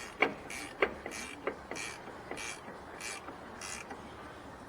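Hand ratchet wrench working in short, even strokes, a rasp of the pawl about every 0.6 s with a few sharp clicks, running nuts down onto the new strut's studs.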